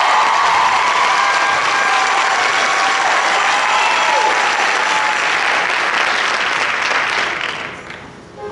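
Audience applauding, with some shouts over it, then dying away near the end.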